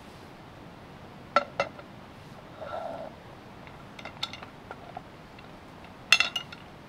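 Metal clinks and clanks from the lid, handle and clamp of an Afghan kazan pressure cooker as it is handled. There are two sharp clinks early on, a short scrape, a few light clinks, and then the loudest cluster of ringing metal clatter near the end.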